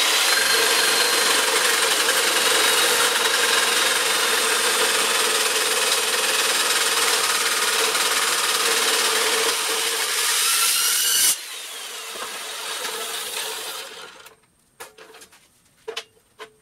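Abrasive metal-cutting chop saw grinding through steel stock: a loud, steady shriek with a whine for about eleven seconds. It then drops off suddenly as the cut ends and the motor winds down, followed by a few sharp metal clanks.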